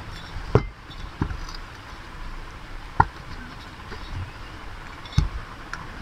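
A few sharp knocks and clicks from a ceiling fan motor's metal end cover being handled and worked loose, the loudest about three seconds in.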